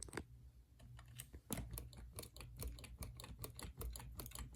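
Gentle, irregular clicking from a ceiling fan motor's bearings as it spins, a few clicks in the first second and then several a second. The owner takes the bearings for mildly blown.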